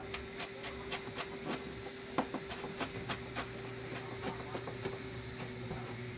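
Kitchen knife cutting an onion on a plastic cutting board: a string of light, irregular knocks of the blade on the board, about three a second, over a faint steady hum that a lower hum joins about halfway through.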